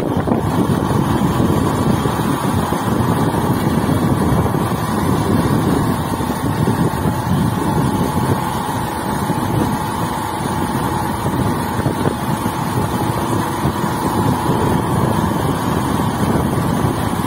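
Wind rumbling on the microphone over a vehicle running steadily as it moves slowly along a road.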